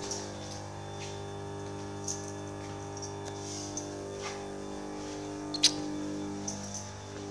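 Electrical transformer humming steadily: a low mains hum with a stack of even overtones. A single sharp tick sounds about five and a half seconds in. The crew suspect something is breaking down in the transformer or in the main breaker.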